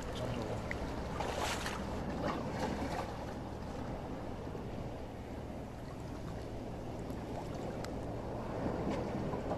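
Shallow seawater lapping and sloshing among rocks at the tide line, with a steady low wind rumble on the microphone. A few small splashes stand out in the first three seconds.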